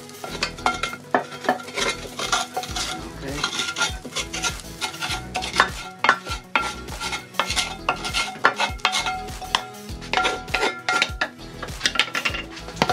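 Wooden spatula scraping and knocking against a frying pan as browned sausages are scraped out into a slow cooker, with irregular clatters and a light sizzle.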